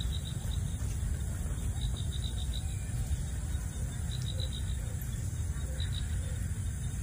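Steady low wind rumble on the microphone, with an insect chirping in short rapid trills over and over.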